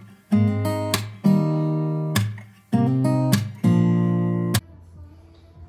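Intro music: a handful of strummed acoustic guitar chords, each ringing out, stopping suddenly near the end and leaving faint room tone.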